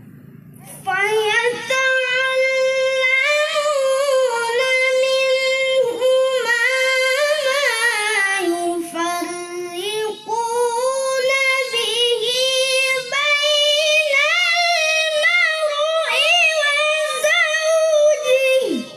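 A boy reciting the Qur'an in melodic tilawah style: one long phrase sung on a high, held pitch with ornamented turns. It starts about a second in, sinks lower in the middle and climbs back up, then drops off quickly in pitch at the end.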